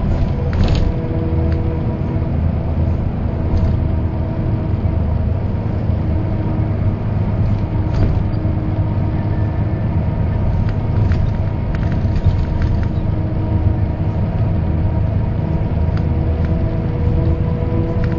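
Mercedes-Benz O408 bus with its OM447hLA six-cylinder turbo diesel running, heard from inside: a steady low rumble with several steady whining tones over it and occasional small rattles and clicks.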